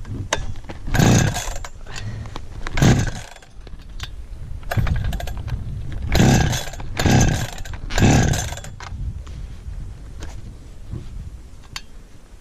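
Perla Barb 84cc two-stroke chainsaw running, its throttle opened in short loud bursts about six times, dropping back between them.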